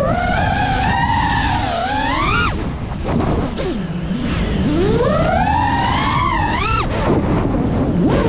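5-inch FPV drone's brushless motors whining, the pitch sweeping up and down with the throttle. The whine is high at first, drops sharply about two and a half seconds in as the throttle is chopped for a dive, climbs again from about four and a half seconds, and falls once more near the end. Wind rushes over the microphone underneath.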